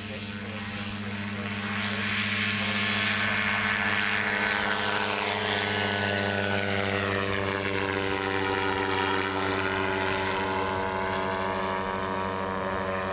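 Quicksilver MX ultralight's two-stroke engine and pusher propeller running steadily in flight. It grows louder about two seconds in, with a slow sweeping change in its tone as it passes.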